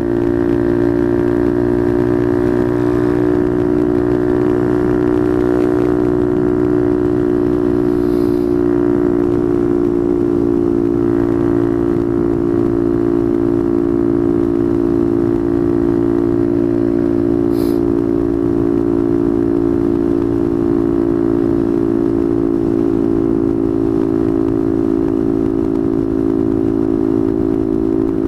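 Motorcycle engine running steadily under way at cruising speed, one even drone whose pitch sags slightly and then holds.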